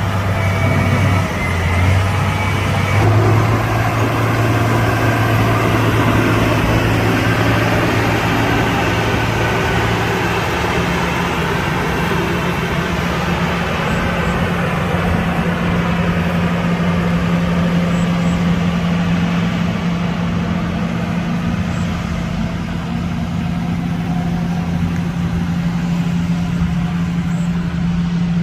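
Motor grader's heavy diesel engine running under steady load; its note steps up a couple of times in the first few seconds, then holds even.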